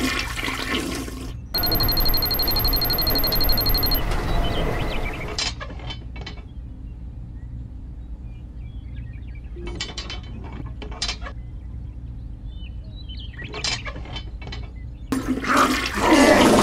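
A toilet flushing: a rush of water for the first few seconds that fades out. Then come a few sharp clicks and taps of small plastic parts being fitted onto a model tractor, and a loud burst of noise returns near the end.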